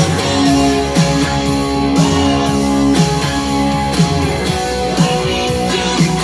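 Electric guitar, a red, black and white striped Frankenstrat-style, being played in a steady rock rhythm with sustained chord tones and a strong accent about once a second.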